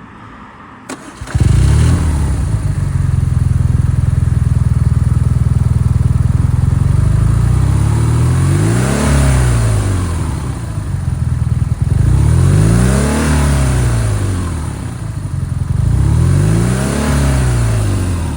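BMW R nineT's boxer-twin engine starting about a second in, then running at idle, with the revs rising and falling three times in the second half. It is the idle the owner calls rough and is troubleshooting.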